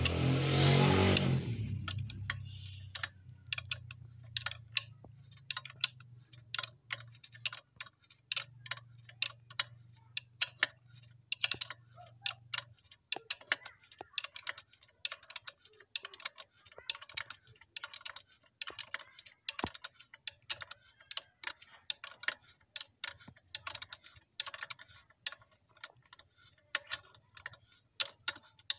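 Ratchet wrench clicking in short, uneven runs as it turns the nut of a bush puller, drawing the pivot bushing out of a motorcycle swingarm. A low rumble fades out in the first couple of seconds, and a steady high hiss runs underneath.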